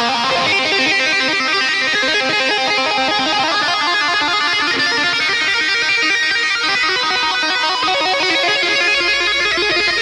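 Background music led by plucked electric guitar, playing fast, dense runs of notes at a steady level.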